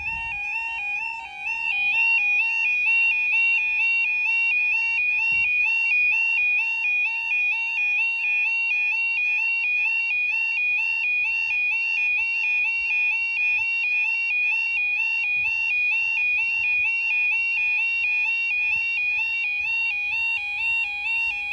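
UK level crossing audible warning alarm sounding continuously: a loud two-tone electronic warble that steps back and forth between two pitches about two or three times a second, warning that the crossing is closed for an approaching train.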